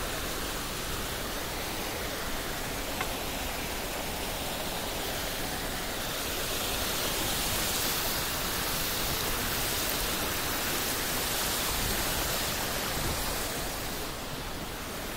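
Shallow mountain stream rushing over rocks: a steady rush of water that grows louder in the middle and eases off near the end.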